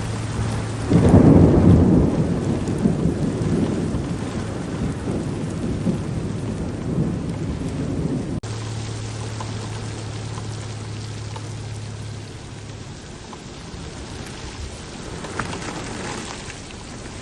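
Heavy rain pouring down steadily, with a loud thunderclap about a second in that rumbles away over several seconds. A steady low hum sits under the rain for much of the time.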